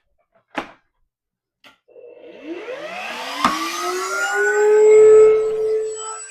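A small high-speed electric motor in a shop tool is switched on with a click and spins up. Its whine rises over about two seconds, then holds at a steady pitch, with a sharp tick midway.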